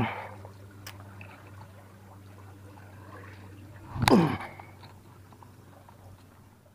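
Quiet creek-bank background with a light tick about a second in, then a loud knock from the camera being handled about four seconds in, followed by a short tone falling in pitch.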